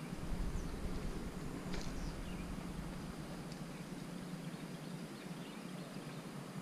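Steady low outdoor background rumble and hum, with a few faint, short high chirps.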